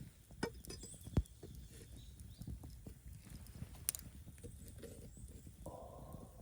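Wood campfire crackling, with irregular sharp pops and snaps, the loudest about a second in and near four seconds.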